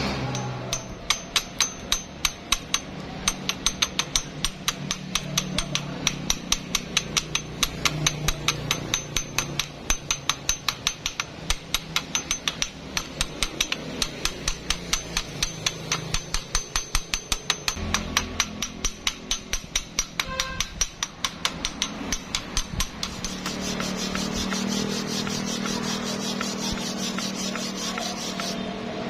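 A hammer tapping steel rapidly, about four sharp strikes a second, typical of chipping slag off a fresh stick weld. After about 22 seconds the tapping stops and a steady scraping, as of brushing or rubbing the metal, takes over.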